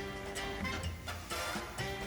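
Background music with a steady beat and held instrumental notes.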